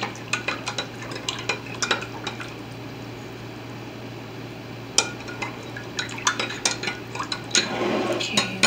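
Metal spoon clinking against a glass measuring cup while vegetable base is stirred into warm water: a run of quick light taps, a lull of a couple of seconds, then one sharp clink about five seconds in and more tapping.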